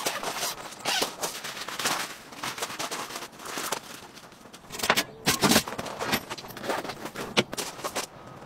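Nylon tent fabric rustling and rasping in irregular bursts as tent window panels are opened and rolled back by hand, with some footsteps on gravel. The loudest bursts come about halfway through.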